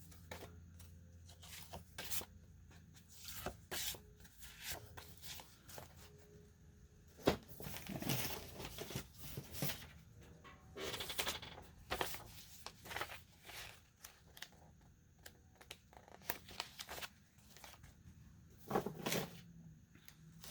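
Paper rustling and sliding as envelopes, cards and sheets of stationery are handled and sorted, with scattered light taps and clicks and a few louder rustles.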